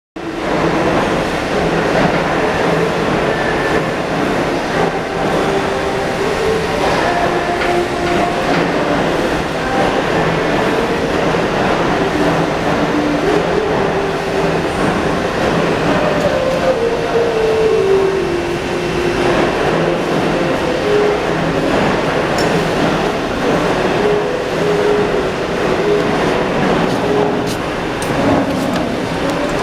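GAU-TECH KS-32E CNC lathe running with its automatic loader feeding screw blanks: steady machine noise with dense clatter, and a motor tone that shifts up and down in pitch.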